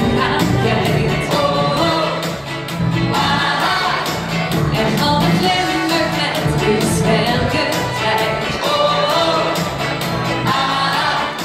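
Live pop music: a woman singing into a microphone over amplified backing music with a steady beat.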